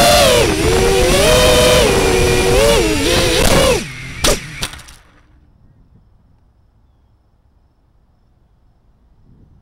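FPV racing quadcopter's brushless motors and propellers whining, the pitch wavering up and down with the throttle. About four seconds in the motors cut as the quad comes down, with a short knock, and the whine dies away.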